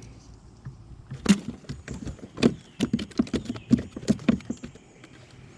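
A small largemouth bass flopping and wriggling while being unhooked by hand: a rapid, irregular run of slaps and knocks, mostly from about a second in until near the end.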